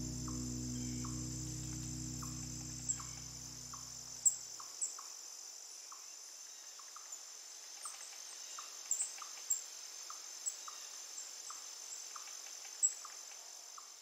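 Forest ambience of insects: a steady high-pitched insect drone, a soft short call repeating about every half second, and scattered sharp high chirps. A low sustained music chord fades out in the first four to five seconds.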